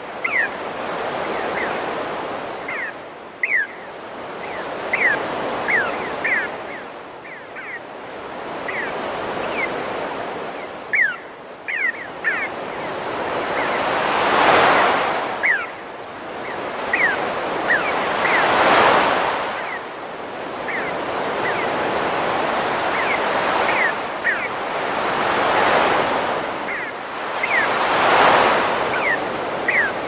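Synthesized ocean surf: a rush of noise that swells and ebbs every few seconds like breaking waves, with the biggest swells near the middle and near the end. Many short, falling synthetic bird chirps are scattered over it.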